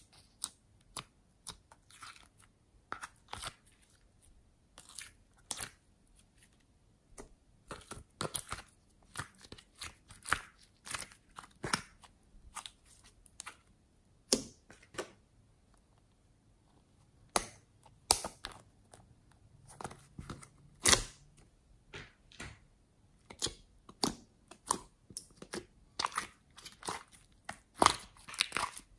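Glossy slime squished and poked by fingers, giving irregular sticky pops and clicks, some in quick clusters and some with short quiet gaps.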